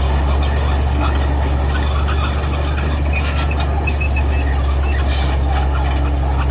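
Heavy diesel engine running steadily at a constant low drone, with short high metallic squeaks and clinks scattered over it.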